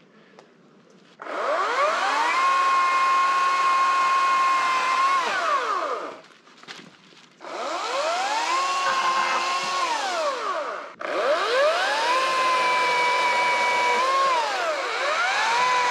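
Chainsaw engine revving up to a steady high-pitched full throttle and falling back, in three stretches, starting suddenly about a second in and breaking off abruptly twice.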